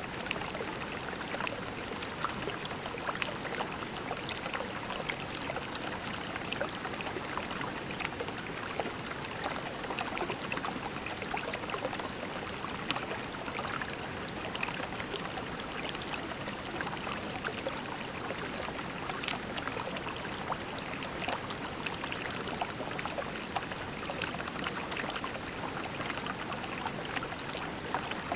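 Shallow creek running steadily over pebbles, with a continuous babble of many small splashes and trickles.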